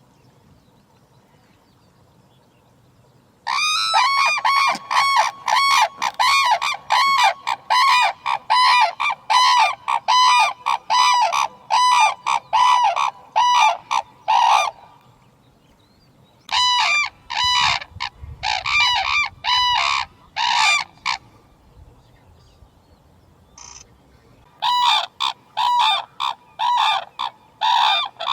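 Red-crowned cranes calling: fast runs of loud, repeated trumpeting calls, about three a second, starting a few seconds in and breaking off twice before resuming.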